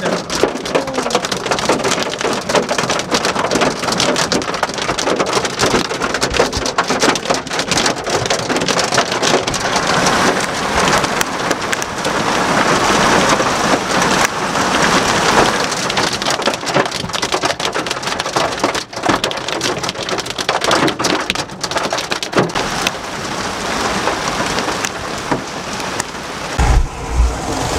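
Heavy hailstorm with rain: a loud, dense clatter of countless hailstones pelting the car and the street. A couple of low thumps come near the end.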